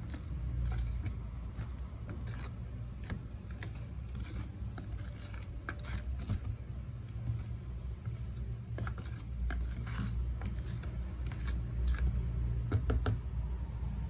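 Irregular soft clicks and sticky crackles of hands working with slime and balloons, a few closely bunched near the end, over a steady low hum.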